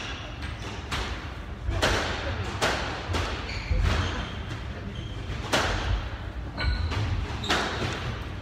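A squash ball thudding hard against court walls in a rally, about once a second with uneven gaps, each hit ringing briefly in the hall. Two short squeaks of shoes on the wooden floor come between hits.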